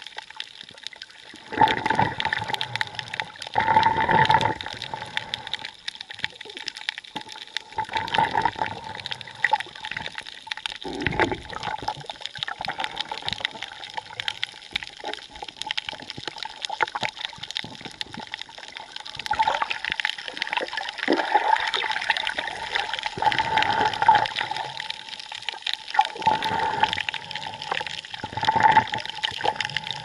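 Water sloshing and gurgling around a camera held underwater just below the surface, swelling in irregular surges every few seconds as the swimmer moves.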